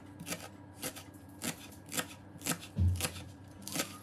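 Kitchen knife chopping green onions on a cutting board: a steady series of short strokes, about two or three a second, with one heavier knock of the board near the end.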